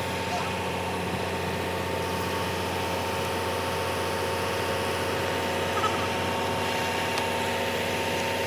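Engine idling steadily, an even hum with a few fixed pitches.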